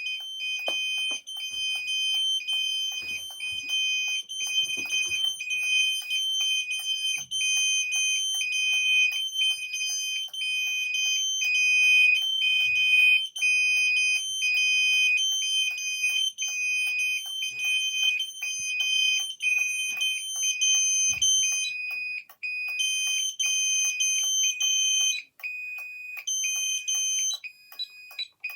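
Fire alarm sounders of an addressable fire alarm system in alarm: a high beeping tone repeating in a fast regular rhythm over a continuous high tone. The continuous tone drops out about 22 seconds in and turns choppy near the end.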